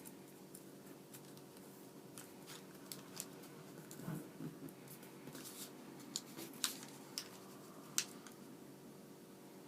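Origami paper being handled and folded: scattered crisp crackles, rustles and ticks as the sheet is bent and creased, the sharpest two about two-thirds of the way through and near the end, over a steady low hum.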